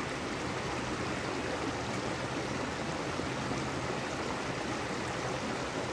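Creek water running over rocks, a steady rush.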